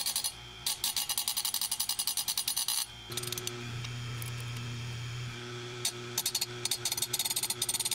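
Oregon 520-120 bench chain grinder sharpening a chainsaw chain: a fast, even run of short grinding contacts as the wheel is tapped lightly against a tooth. About three seconds in, the tapping stops and the motor hums steadily with the wheel spinning free. The tapping starts again near the end.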